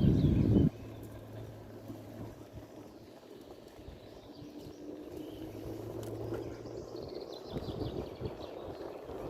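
A loud low rumble, like wind on the microphone or a vehicle, cuts off abruptly under a second in. Then comes quieter outdoor background with a low steady engine-like hum and a few high bird chirps near the start and near the end.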